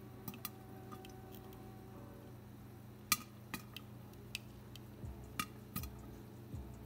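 Popcorn kernels starting to pop in hot oil in a covered pot: scattered sharp pops at irregular intervals, the loudest about three seconds in.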